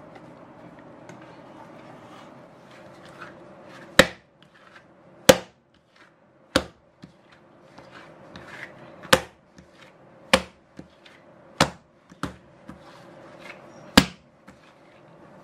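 Soft enriched bread dough slapped down hard onto a silicone baking mat during hand kneading: about eight sharp slaps, roughly one every second and a bit, starting about four seconds in.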